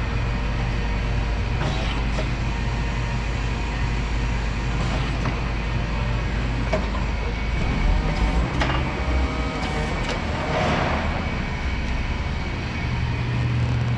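CAT Mitsubishi FBC18N electric forklift running: a steady low electric-motor hum as it drives and works the forks. The hum shifts in pitch a little after the middle and settles back near the end, with a few brief higher chirps in between.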